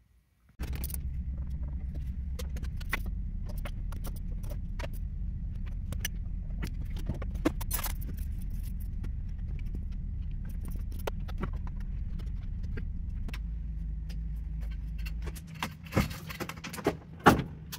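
Hand tools and header bolts clinking and tapping under the hood as the exhaust header bolts are taken out, over a steady low hum that cuts off about fifteen seconds in. A few louder metal clanks come near the end.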